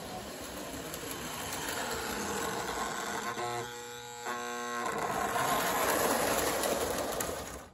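Toy model train with a Rock Island diesel locomotive running on its track, the motor and wheels whirring louder as it draws near and passes close. Its horn sounds twice in the middle, and the sound cuts off suddenly at the end.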